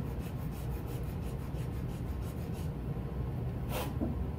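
Hand file rasping on a small cast resin part in quick, short strokes, about five a second, that stop a little before three seconds in. A single click follows near the end.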